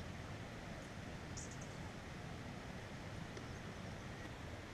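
Quiet outdoor ambience: a steady low wind rumble on the microphone, with a brief high bird chirp about a second and a half in.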